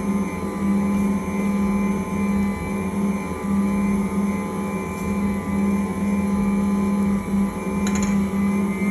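Ankarsrum Original stand mixer running steadily, its motor humming as the bowl turns and the roller and scraper work a wet pizza dough. A brief click near the end.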